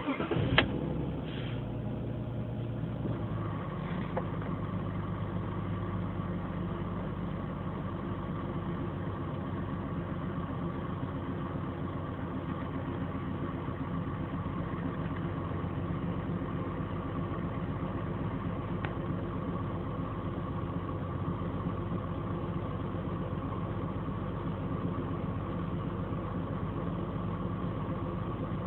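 BMW 528i engine idling steadily after a few sharp clicks at the start, with a steady high whine coming in about three seconds in; this is the abnormal engine noise the car has made since a minor front-end collision.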